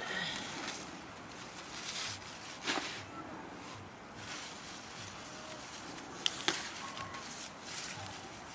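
Leafy greens being picked by hand: leaves rustling and stems snapping, with a few sharp snaps, the clearest about a third of the way in and twice close together near the end.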